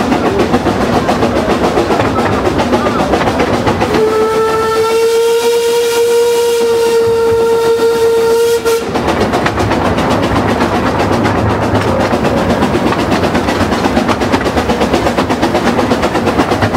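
1895 Hunslet Dinorwic-class 0-4-0T quarry tank locomotive working along under steam, with a rapid, even rippling beat. About four seconds in it sounds one long steady note on its steam whistle, lasting roughly five seconds before cutting off sharply.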